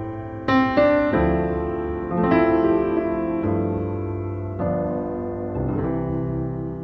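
Background piano music: slow, sustained chords, a new chord struck every second or so, each fading away.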